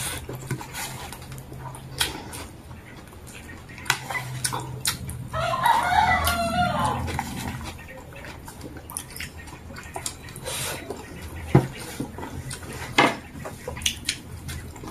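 A rooster crows once, a wavering call of about two seconds near the middle, over scattered light clicks of a spoon and fork on a plate.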